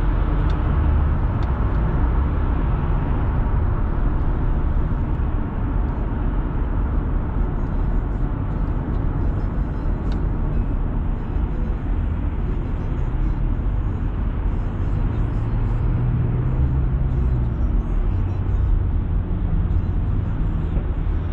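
Steady road and tyre noise with a low engine hum, heard from inside a car's cabin while driving on a highway.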